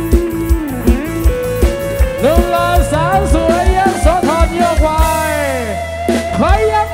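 Live band music played loud through a sound system: an amplified plucked-string lead plays a run of bent, sliding notes over a steady kick-drum beat.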